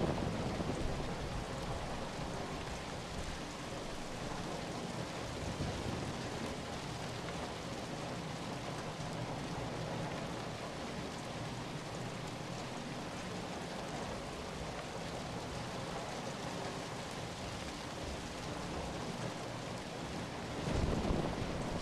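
Steady rain falling, an even hiss of drops, with a brief low swell right at the start and again near the end.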